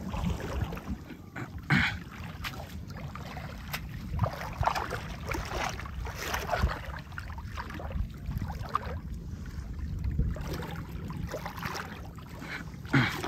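Shallow seawater splashing and sloshing in irregular bursts around a person wading and working a hand net among stake-net fish traps, over a low rumble of wind.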